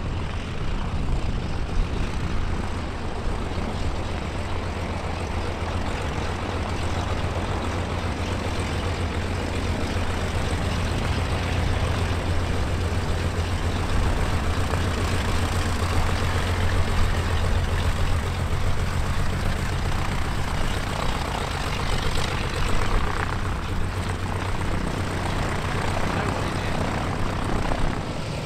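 Propeller-driven piston aircraft engine running steadily with a deep, even drone.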